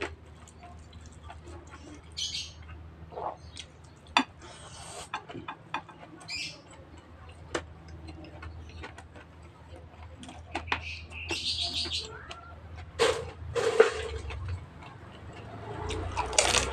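Close-up mouth sounds of a person eating rice and raw-vegetable karedok by hand: wet chewing, lip smacks and tongue clicks, with short crunching bursts, scattered irregularly.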